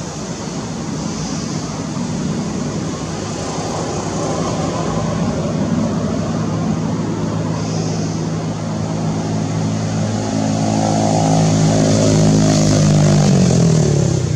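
A motor vehicle's engine humming, growing louder over the last few seconds, then dropping in pitch as it drives past near the end.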